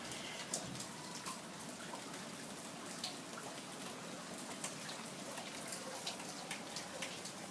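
Light rain falling steadily, with scattered drops ticking here and there.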